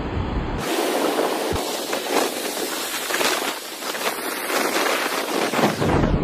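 Heavy surf from a rough sea: waves breaking and washing over rocks in a steady, loud hiss of foam and spray. Wind buffets the microphone at the start and again near the end.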